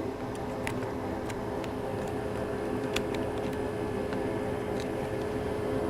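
Steady hum of a small electric fan motor on the repair bench, with scattered light clicks and taps of small parts being handled.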